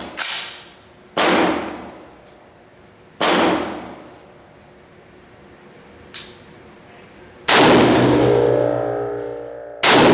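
Three shots from a FAMAE SG542 .308 semi-automatic rifle in the first few seconds, each with a sharp crack and about a second of echo off the range walls. Later come two loud clanging strikes, about two seconds apart, that ring on with sustained tones.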